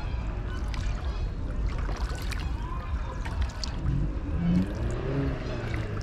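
Water splashing and lapping over a steady low rumble, with a person's voice heard faintly about four to five seconds in.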